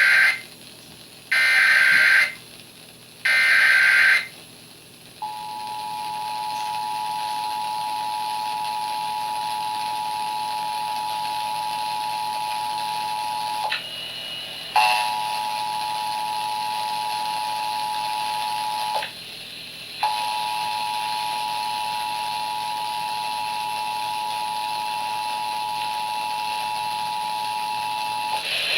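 Emergency Alert System test signal: three short bursts of SAME header data tones, then the EAS two-tone attention signal (about 853 and 960 Hz sounded together) held for over twenty seconds, cutting out briefly twice along the way.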